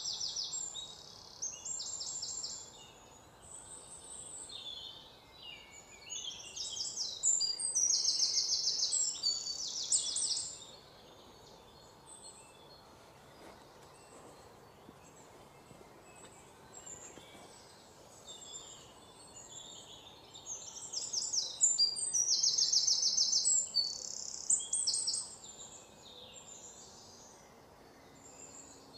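Small birds chirping in quick, high trills, in bursts of a few seconds, over a faint steady background hiss. A longer quiet stretch in the middle holds only the hiss.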